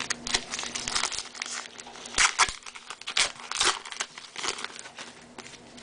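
Baseball trading cards being handled and flipped through by hand: an irregular run of sharp flicks, slides and crinkling rustles, loudest a little past two seconds in.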